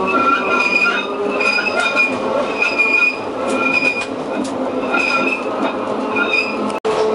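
Trieste–Opicina historic tramcar running on its rails, heard from the front of the car, with short high wheel squeals repeating every half second to a second as it rounds the curve. A brief dropout near the end.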